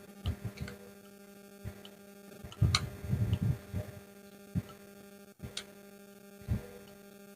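Small metal clicks and knocks as a thin tool pries at the crimped aluminium casing of a rice cooker's magnetic thermostat, with a denser cluster of louder knocks about three seconds in. A steady electrical hum runs underneath.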